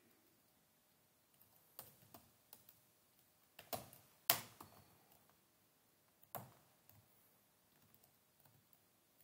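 Computer keyboard being typed on, a faint, uneven run of key clicks with a few harder keystrokes in the middle.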